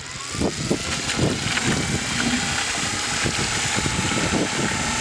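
Series-wound DC electric motor driving a hydraulic pump at 24 volts. It starts with a whine that rises over about the first second, then runs steadily with a churning rumble as the pump moves water. Water from the hose splashes into a plastic bucket.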